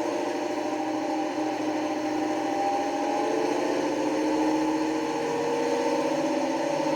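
Recorded Napier Deltic diesel engine sound from the sound decoder of an Accurascale Class 55 Deltic model locomotive, played through its small speaker, running steadily with its pitch drifting slightly up and down.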